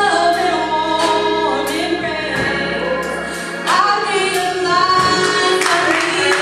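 Gospel choir singing with drum kit and keyboard accompaniment, the voices holding long, bending notes. The music gets louder a little past halfway.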